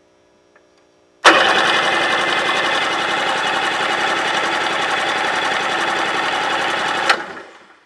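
Rotax 587 two-stroke twin of a 1993 Sea-Doo GTS cranked over on its electric starter for a compression test, a fast, even churning that starts about a second in and stops abruptly near the end. The magneto-side cylinder reads 149 PSI on it: good, even cold compression.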